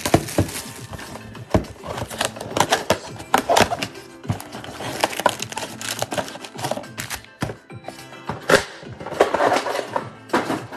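Cardboard trading-card mega box being opened and its foil card packs pulled out and stacked, making repeated sharp crinkles, clicks and thunks, over steady background music.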